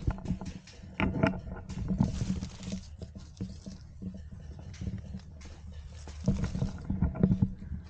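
Rustling and crackling of dry leaves and bamboo undergrowth as a person moves through it, with irregular knocks and clicks of gear being handled close to the microphone.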